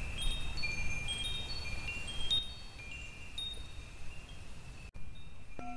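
Chimes tinkling: many short, high ringing notes, struck at random and overlapping as they fade.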